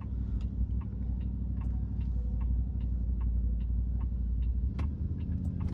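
Car turn-signal indicator ticking evenly, about two to three ticks a second, as the car makes a U-turn, over the low steady rumble of road noise inside the cabin.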